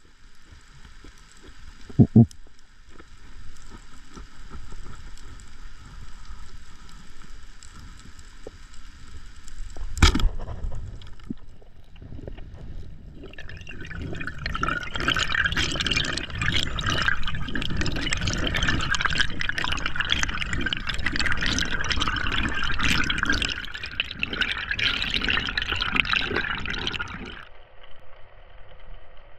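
Underwater sound from a spearfisherman's camera: a low steady hiss, then a single sharp snap about ten seconds in as the speargun fires. After that comes a long stretch of loud bubbling, crackling water noise, which stops suddenly near the end.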